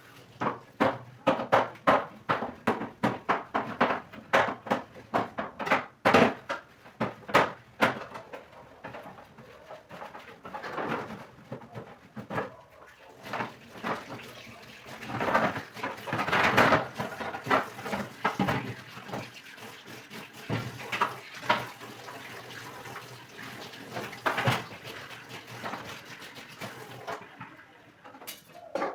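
Kitchen clatter: a quick run of knocks and clinks of dishes and household objects being handled, thinning out to scattered knocks after about ten seconds.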